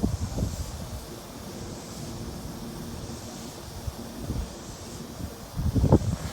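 Wind buffeting the microphone over the low rumble of an approaching Keisei 3700-series electric train; the rumble grows louder near the end.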